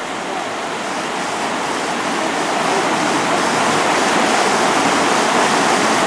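Fast, shallow river water rushing steadily over rocks in riffles, a continuous rush that grows a little louder over the first few seconds.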